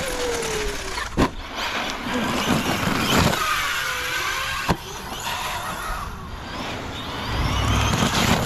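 Radio-controlled basher truck's brushless electric motor whining up and down in pitch as it is driven and jumped. There is a sharp knock about a second in, and another about four and a half seconds in, as the truck lands and hits the ground.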